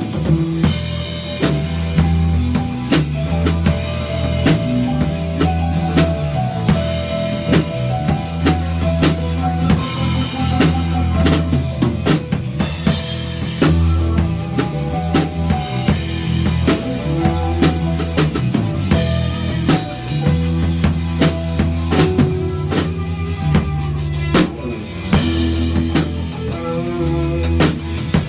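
Improvised instrumental rock jam: a full drum kit playing busily over electric guitars holding and changing low notes.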